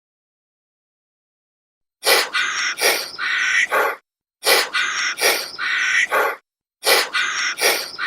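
An animal's loud, harsh calls, starting about two seconds in, in three bursts of about two seconds each, each burst made of several quick calls.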